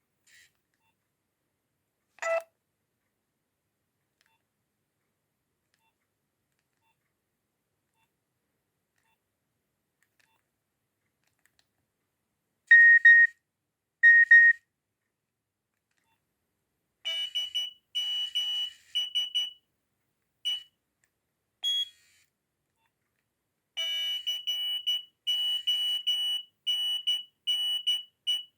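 Nokia 6610 mobile phone sounding short electronic beep tones. After a long quiet stretch come two loud beeps, then several shorter, higher beeps, and near the end a rapid repeating beep pattern like an alarm tone.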